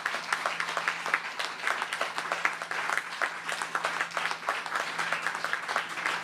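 A crowd applauding, a dense patter of hand claps that goes on without a break.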